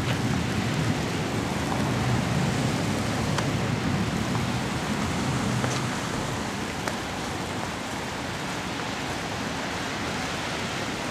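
Snowstorm wind: a steady rushing noise with a low rumble that eases about six seconds in, and a few faint ticks.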